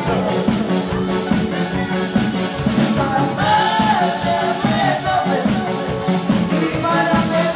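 Live band playing Romani pop music with a steady beat: drum kit, electric guitar, electric bass and keyboards, with a man singing into a microphone.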